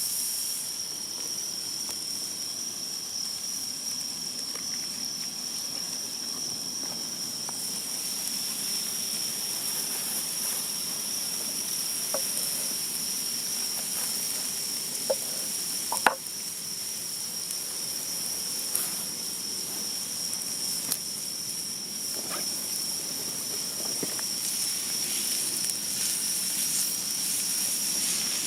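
Food sizzling over a wood fire: a steady high hiss over a constant high tone, with a few sharp crackles around the middle, the loudest one about halfway through.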